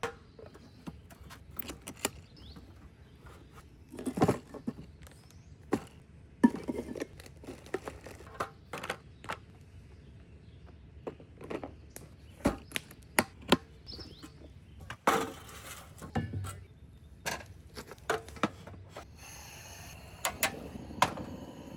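Camp cooking gear and dishes being handled: scattered clinks, taps and knocks, with a few louder knocks about four, six and a half, fifteen and sixteen seconds in.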